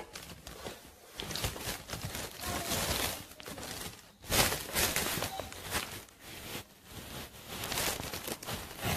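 Rustling and rubbing handling noise from a handheld phone being moved about close to the camping chair's nylon fabric and steel frame. It comes in uneven bursts, with the loudest stretch about four and a half seconds in.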